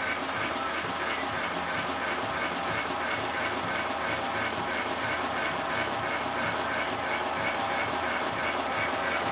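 Universal milling machine running with a hobbing attachment: a steady mechanical running noise with a regular pulsing, and a steady high-pitched whine over it.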